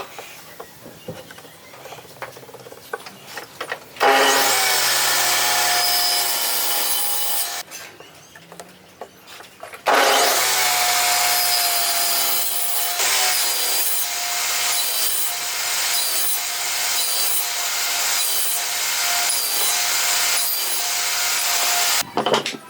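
Power saw cutting through wood in two passes, a short cut and then a much longer one, with the motor's steady whine under the cutting noise. Quieter handling knocks come before the first cut.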